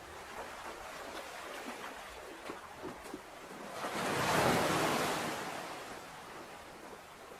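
Sea waves: light lapping with small crackling splashes, then one wave surging in about four seconds in and draining away again.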